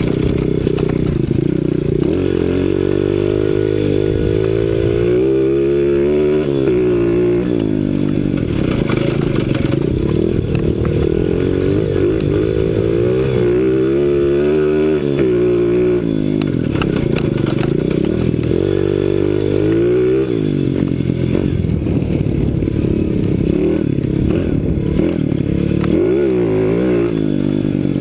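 CRZ 125 Pro pit bike's small single-cylinder four-stroke engine running under load, its pitch repeatedly dropping off and climbing again as the throttle is closed and reopened. There are four such dips.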